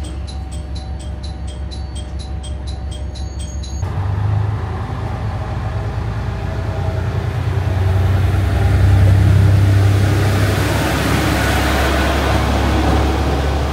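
An Ihara Railway IRT355 diesel railcar's engine running as it pulls away, its engine and wheel noise growing louder to a peak about nine to twelve seconds in, then easing a little near the end. For the first four seconds there is instead a fast, regular high ticking pattern over a low hum.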